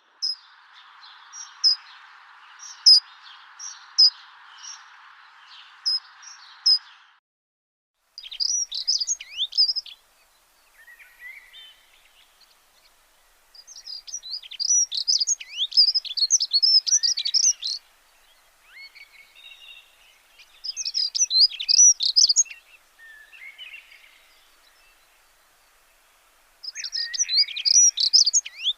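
Small birds chirping and twittering in quick high phrases that come in bursts with short pauses between. A steady hiss runs under the first seven seconds and then cuts off.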